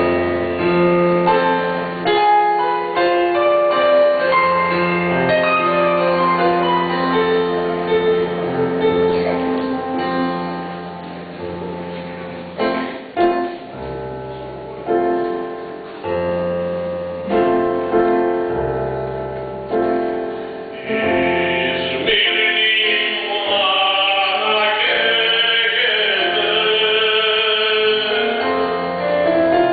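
A mixed choir singing with keyboard accompaniment. About two-thirds of the way through, the higher voices come in stronger and the singing grows brighter.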